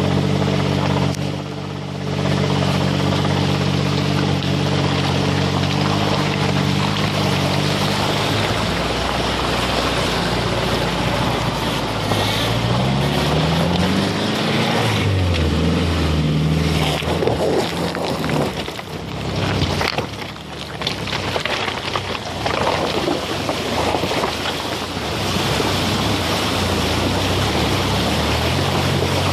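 A 4x4's engine pulling slowly over a rocky creek bed, its note steady at first, then rising and falling once around the middle. This gives way to a stretch of rough noise, and near the end water splashes up against the front tyre as the vehicle fords the stream.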